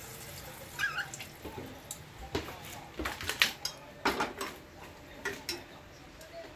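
Pots, lids and kitchen utensils clattering: a string of irregular clinks and knocks, the loudest about halfway through.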